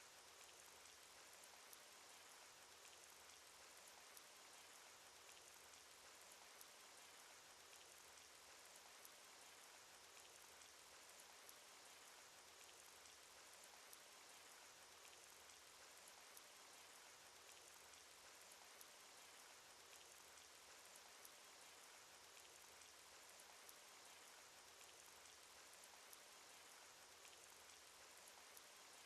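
Cartoon rain sound effect: a faint, steady fall of rain with many small drops ticking through it, unchanging throughout.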